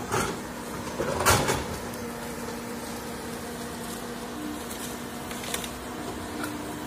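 Komatsu hydraulic excavator's diesel engine running with a steady hum, with two loud knocks near the start, the louder about a second in, and a few faint ticks later.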